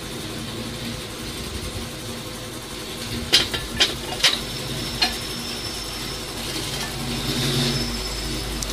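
Sharp metal clanks of steel track-chain links and pins being handled and set into a hydraulic track pin press: four knocks close together a little before the middle, over a steady machine hum.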